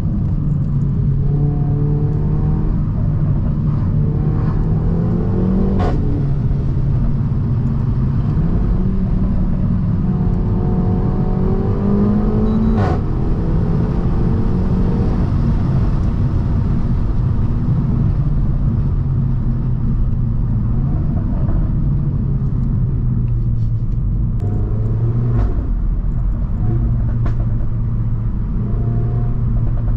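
Renault Mégane 4 RS 280's 1.8-litre turbocharged four-cylinder with a catless exhaust, driven at moderate revs. The engine note climbs and then drops at upshifts about six seconds in, about thirteen seconds in, and near twenty-five seconds, each shift marked by a sharp exhaust crack over steady road rumble.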